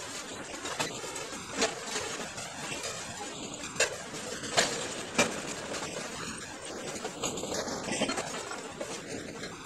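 Metre-gauge freight train of tank cars rolling past: a steady rumble of wheels on the rails, with a few sharp, irregular clacks. The sound is sped up threefold.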